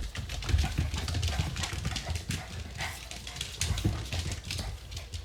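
Young puppies play-fighting, with repeated soft thumps and clicks of scrabbling paws and claws.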